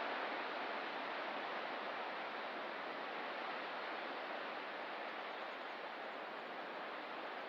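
Ocean surf as a steady rushing wash, with no single breaking wave standing out.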